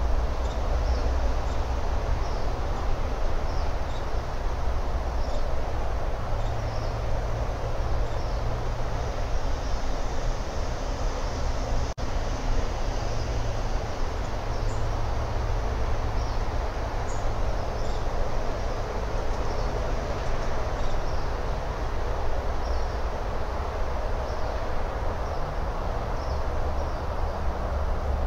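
Steady outdoor background noise on a webcam microphone: a low rumble under an even hiss, with short, faint high chirps recurring about once a second.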